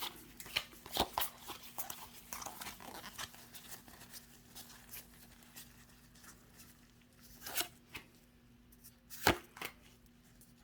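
Pokémon trading cards being handled and flicked through: scattered soft clicks and taps, with a louder tap about a second in and two more in the last few seconds.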